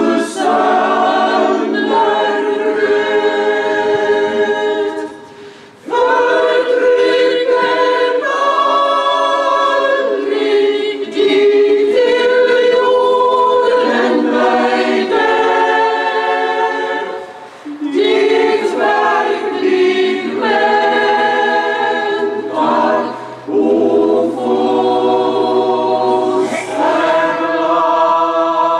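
Mixed choir of men's and women's voices singing unaccompanied, in several long phrases with short breaks between them.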